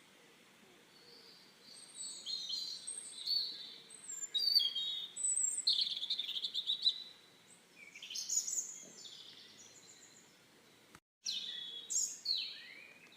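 Birds chirping and twittering in short, high, quick phrases, starting after about two seconds of near quiet. The sound drops out completely for a moment about eleven seconds in, then the chirping resumes.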